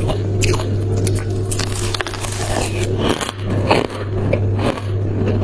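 Close-miked crunching of white shaved freezer ice being bitten and chewed: a dense run of crisp crunches, over a steady low hum.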